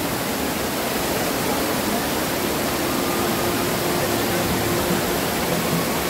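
Waterfall and the muddy torrent below it rushing over boulders: a steady, even wash of water noise.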